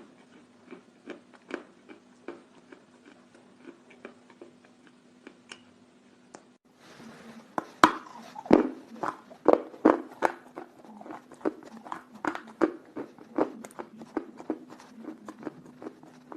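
Chalk being bitten and chewed close to the microphone: a string of short, sharp crunches, sparse and softer at first, then louder and more frequent from about halfway, over a faint steady hum.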